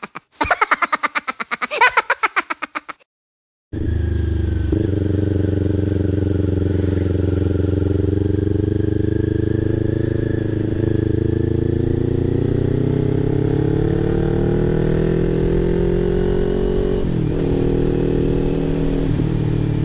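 A man laughing for about three seconds, thin-sounding, then a short break. After that a motorcycle engine runs steadily under way, its pitch rising slowly as it speeds up, and dropping suddenly twice near the end at gear changes.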